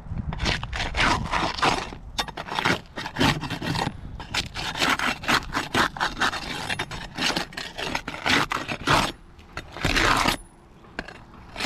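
Asphalt roof shingles scraping and crackling as they are worked loose and lifted by hand, in a run of irregular gritty bursts with a short lull near the end.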